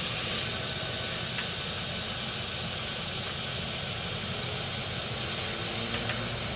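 Computerised German equatorial telescope mount slewing under its motors on a go-to toward a star, a steady high-pitched motor whir.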